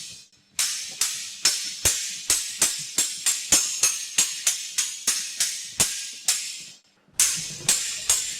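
Steel swords clashing in a sword fight: quick, ringing blade-on-blade strikes about three a second. The strikes pause briefly just after the start and again near the end.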